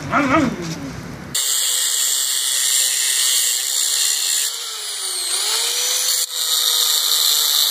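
An electric angle grinder cuts metal, starting abruptly about a second and a half in after a snatch of music. It gives a steady hissing grind over the motor's whine, which dips in pitch briefly past the middle as the disc bites in under load, then recovers.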